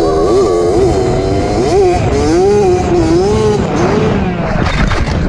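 2003 Suzuki RM60's small two-stroke engine revving up and down under way, over heavy wind noise on the microphone. Near the end a series of sharp knocks and clatter breaks in.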